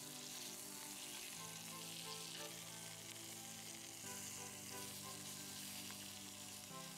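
Lamb chops sizzling as they sear in a cast-iron skillet, a steady crackling sizzle. Soft background music plays under it, its chords changing every second or so.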